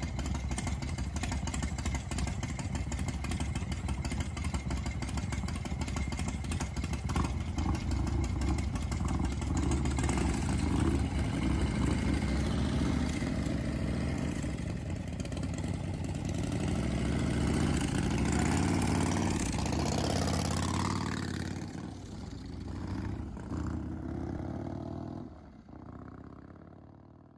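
Harley-Davidson Evolution V-twin engine of a rigid chopper idling, then running harder as the bike pulls away, and fading away near the end.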